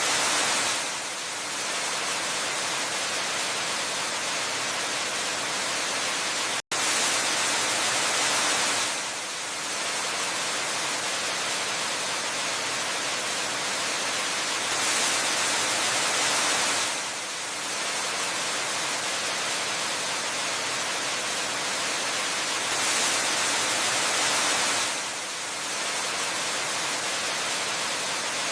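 Waterfall water rushing as a dense, steady hiss, swelling slightly louder about every eight seconds. It cuts out for an instant about a quarter of the way in.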